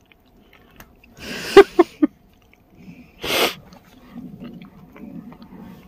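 A person's brief non-speech vocal sounds: about a second in, three quick pitched bursts, then a short, sharp breathy burst about a second later.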